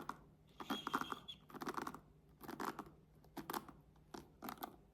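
The bristles of a hairbrush being raked and scratched, in about five short bursts of crackly scratching.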